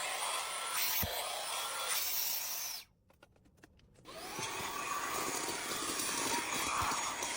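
Handheld mini vacuum cleaner running with a steady whirr. It is switched off about three seconds in and winds down, then switched back on a second later, its motor whine rising as it spins up.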